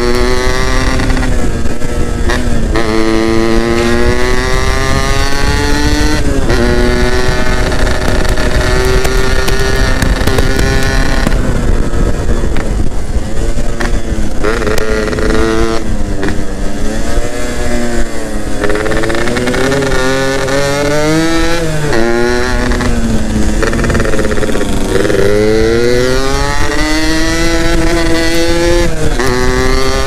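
Yamaha F1ZR's 110 cc single-cylinder two-stroke engine running hard under way, its pitch climbing as it revs out and dropping back several times, as at gear changes.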